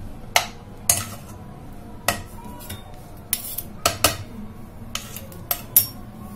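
A spoon clinking and tapping against a nonstick pan as desi ghee is knocked off it into the pan: about eight sharp clinks, loudest near the middle and near the end.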